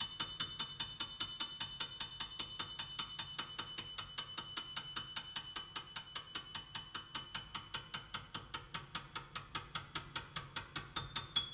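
Solo piano music: a quick, even run of repeated high notes, about six a second, over held tones.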